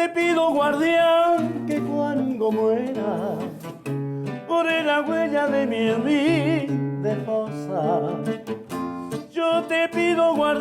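A song: a voice singing with wide vibrato over plucked and strummed acoustic guitar.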